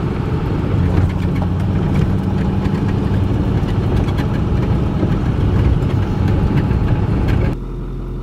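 Vehicle driving slowly over a bumpy dirt track, heard from inside the cab: steady engine and tyre noise with small rattles and knocks. Near the end the noise drops to a quieter low hum as the vehicle stops with its engine idling.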